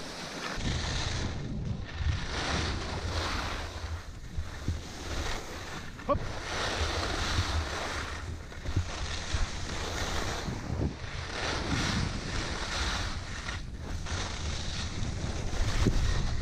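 Wind rushing over the camera microphone, with skis scraping and hissing across packed snow during a downhill run. The noise swells and eases off every two to three seconds with the turns.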